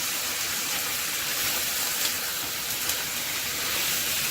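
Chicken pieces frying in hot oil with garlic and ginger, a steady sizzle with a few faint crackles, as the meat cooks until it turns white all over.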